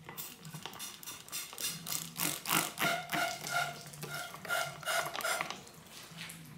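Trigger spray bottle squirting degreaser down inside a bicycle fork's tube in a quick run of short sprays, several a second, stopping near the end. The degreaser is flushing old rust and grime out of the tube.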